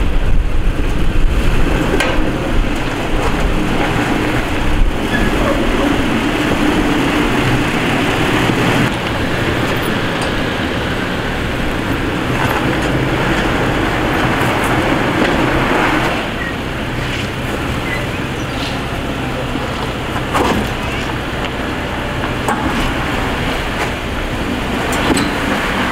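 Off-road vehicle driving along a rough canyon trail, engine running under a steady wash of road noise that eases a little about two-thirds of the way in.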